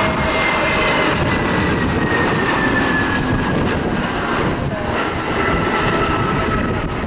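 Jet engines of an Airbus A320neo running with a steady rush, with a high whine that slowly falls in pitch.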